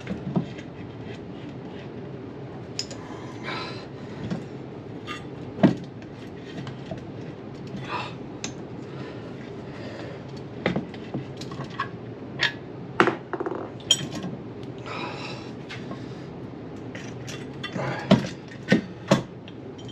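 Steel gears and shafts clinking and knocking against an E153 transaxle case as they are worked into place by hand: scattered light taps with a few sharper knocks, over a steady low hum.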